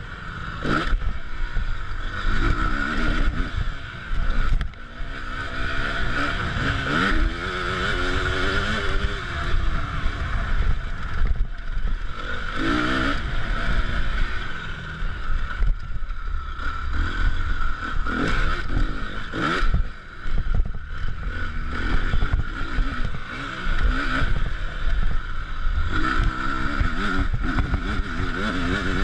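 Motocross bike engine revving up and down again and again as it is ridden over a dirt track, heard from a camera on the handlebars, with a noisy haze and short knocks and clatter from the bumps.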